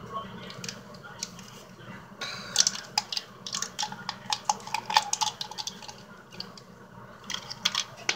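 Small handling noises as a tea bag is worked into a glass jar: a run of quick crinkles, clicks and light taps on the glass, busiest a couple of seconds in and again near the end.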